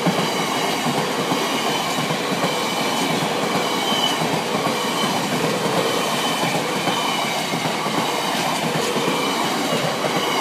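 Long freight train of bogie hopper wagons rolling past at close range: a steady rumble and clatter of steel wheels on the rails.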